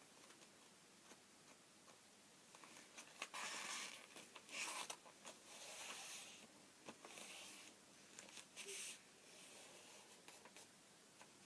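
A sheet of printer paper being handled and creased: faint rustling and sliding in short spells, with a few light taps.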